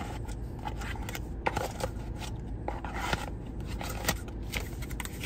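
Camera-box packaging and accessories being handled during unboxing: scattered rustles, scrapes and light clicks at irregular intervals, over a steady low hum.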